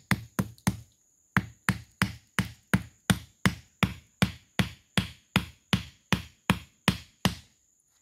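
A thick wooden stake being driven into the dirt with rapid, even knocks, about three a second. There is a short break about a second in, and the knocking stops shortly before the end.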